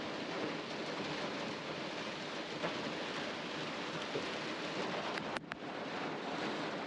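Hard rain falling steadily on a pickup truck, heard from inside the cab.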